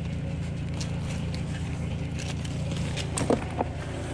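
Hardcore rubble being scraped up by gloved hands and dropped into a bucket, with two sharp knocks of stone about three seconds in. A steady low engine hum runs underneath.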